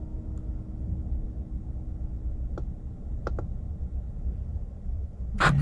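Three short clicks of the truck's steering-wheel control buttons being pressed to confirm the oil-life reset, one about two and a half seconds in and two close together a little later, over a steady low hum in the cab.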